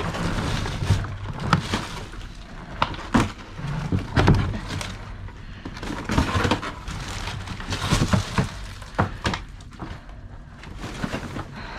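Rummaging through a dumpster: bags and packaged produce rustling and being shifted, with scattered knocks and thuds as items are moved. The loudest thud comes about four seconds in.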